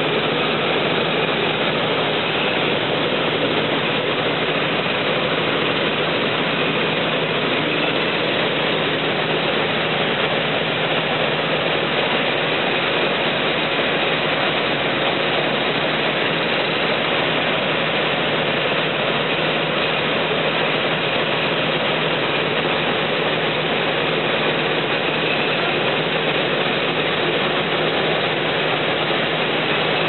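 CLAAS combine harvester running steadily while harvesting rice: engine and threshing machinery in a constant mechanical drone, heard from the machine itself beside the grain tank as threshed grain pours in.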